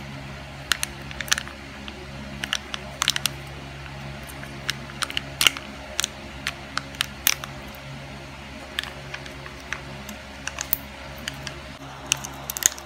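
Scattered sharp clicks and crinkles from food packaging being handled, over a low steady hum. Near the end the clicks come thicker as the foil lid of a hotcake syrup cup is peeled back.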